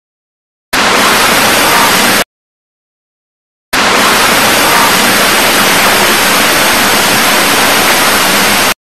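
Loud static hiss, switched on and off abruptly: a burst of about a second and a half, a pause, then about five seconds more that cuts off suddenly near the end.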